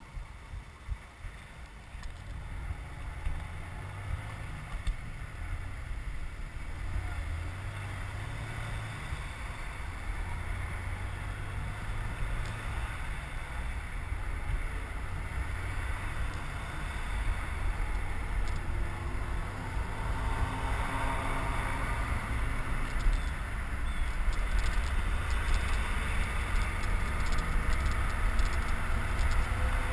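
Wind noise on the microphone of a camera on a moving bicycle, a low rumble that grows steadily louder, with car engines and tyres in the surrounding traffic faintly audible.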